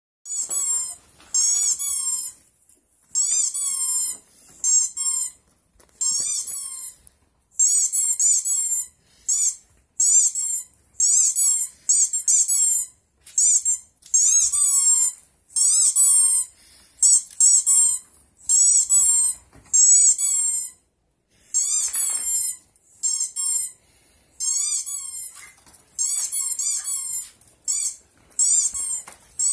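Dogs yelping and whining in rapid bursts of short, high-pitched falling cries, about one burst a second, in an excited state.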